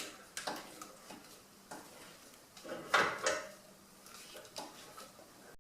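A few separate metal clanks and scrapes from a steel scissor jack being set in place under a car's rear coil spring. The loudest comes about three seconds in.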